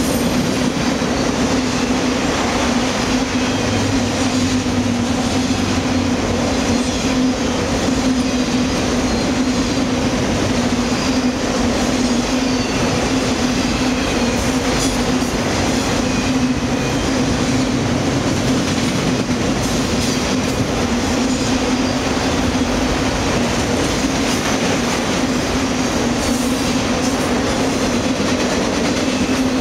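Freight train of autorack cars rolling past at steady speed: a continuous rumble and rattle of wheels on rail under a steady low drone.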